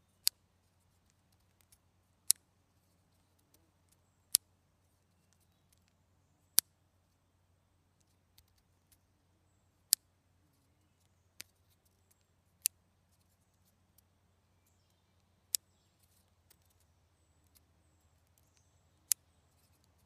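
Clothespins snapping shut: about nine sharp, single clicks spaced irregularly two to three seconds apart, one of them fainter.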